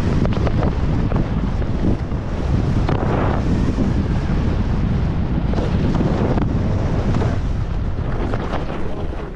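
Heavy wind rumble on a downhill skier's action-camera microphone, with skis scraping and hissing over firm, chopped snow; the scrape swells louder several times as the skier turns.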